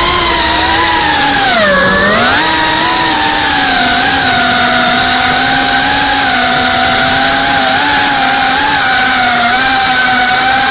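GEPRC Cinelog35 FPV cinewhoop's brushless motors and propellers whining, heard up close from the onboard camera. The pitch dips about two seconds in and comes back up, then holds fairly steady with small wavers.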